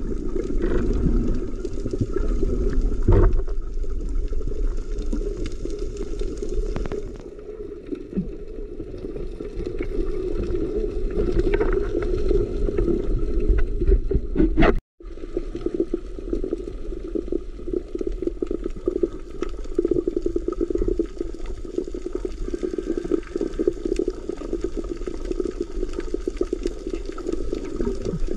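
Underwater sound through a camera's waterproof housing: a steady, muffled rush of water with a light crackle, which drops out for an instant about halfway through.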